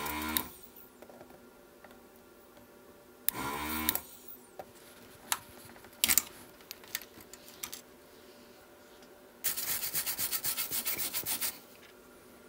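Electric desoldering gun's vacuum pump running in short bursts while the pins of a 74LS367 chip are desoldered from the circuit board. There are brief bursts at the start and a few seconds in, with a rising and falling motor pitch, then small clicks of the tip on the pins, and a longer, rapidly pulsing burst near the end.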